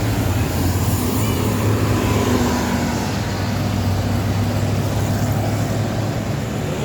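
Tour bus diesel engine running in road traffic: a steady low drone over traffic noise.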